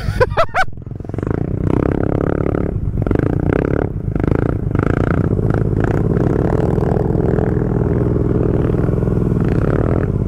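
ATV engine running steadily under load as the four-wheeler drives through deep muddy water, with water sloshing and splashing around it. A brief wavering high-pitched sound comes at the very start.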